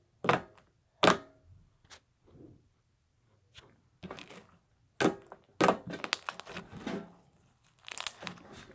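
Blue fluffy slime with foam beads being poked, pressed and squished by hand, giving sharp, irregular pops and clicks, a dozen or so spread through the stretch.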